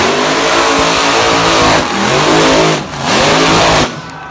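Lucas Oil Equalizer monster truck's engine revving hard in repeated surges, the throttle lifted and pressed again about once a second, with a short drop in the engine sound near the end.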